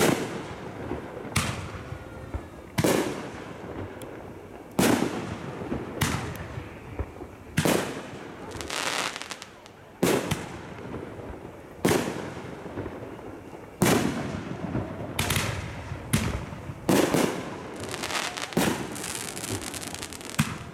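Aerial firework shells bursting overhead: a string of sharp booms every one to two seconds, each trailing off in a rolling echo. Crackling follows some bursts, around the middle and again near the end.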